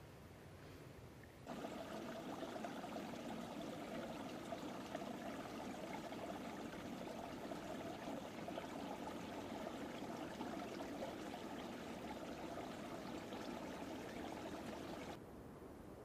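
Small woodland stream trickling, a steady babble of running water that starts about a second and a half in and stops shortly before the end.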